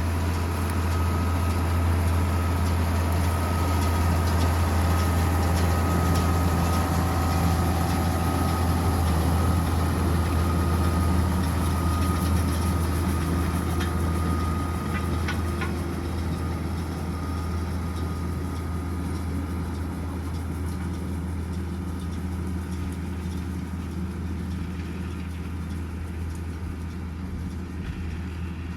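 Tractor and Welger Lely RP220 Master round baler running steadily, with a deep engine hum and a faint high whine from the machinery in the first half. A few clicks come about halfway through, and the sound then slowly gets quieter.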